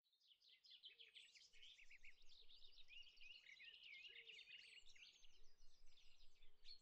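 Faint birdsong: several small birds singing and chirping at once, a dense run of quick high chirps and short phrases.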